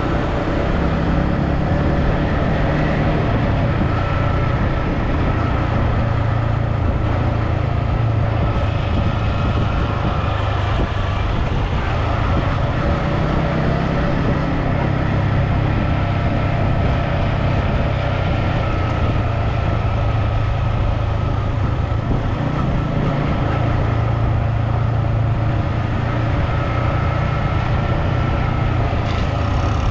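Steady engine and road noise of a moving vehicle, running evenly throughout with a low hum.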